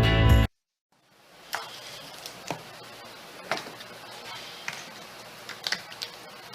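Background music cuts off about half a second in. After a brief silence come scattered light clicks and taps, about ten of them, from clamps being fitted and tightened on a glued-up curved wood lamination.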